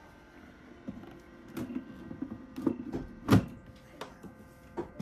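Clear plastic incubator cover being set back onto its base: a handful of plastic knocks and clicks, the loudest about three and a half seconds in, over a faint steady machine hum.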